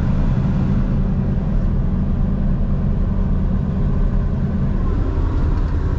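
Forage harvester running steadily under load, a continuous low engine drone.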